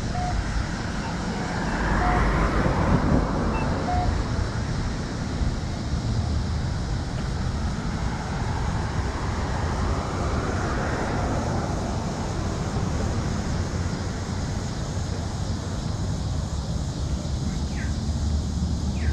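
Street traffic: the hiss of passing cars swells twice, about two seconds in and again around ten seconds, over a steady low rumble.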